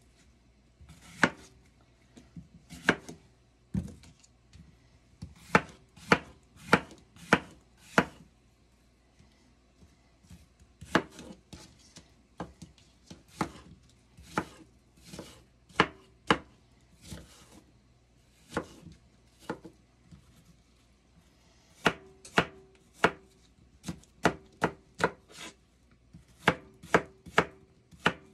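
A kitchen knife slicing and dicing a green apple on a cutting board: irregular knife strikes on the board, often in quick runs of several, with a few short pauses.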